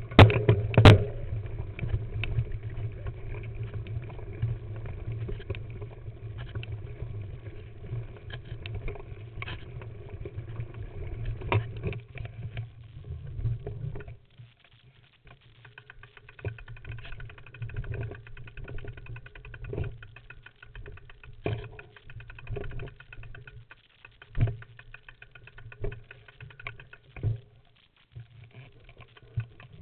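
Mountain bike riding a rough rocky trail, heard through a frame-mounted camera: a continuous low rumble and rattle from tyres, frame and parts over the ground, with sharp knocks from rocks. About halfway through the rumble drops away, leaving quieter scattered knocks and clicks.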